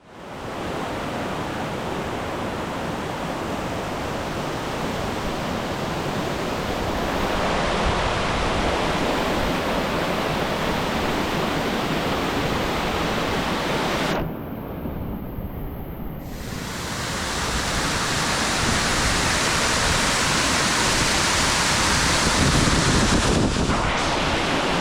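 Waterfall roaring, a steady rushing of falling water. It goes muffled for about two seconds around the middle, then returns in full.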